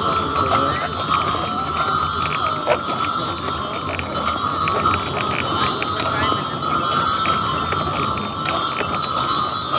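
Harness bells on a team of two draft horses pulling a wagon, jingling continuously with the horses' movement. The bells give a steady ring full of quick little strikes, over a low rumble of the moving wagon.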